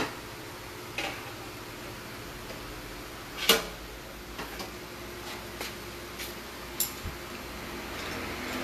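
Scattered clinks and knocks of tools being handled, over a steady low hum. The loudest knock comes about three and a half seconds in, and several lighter clicks follow in the second half.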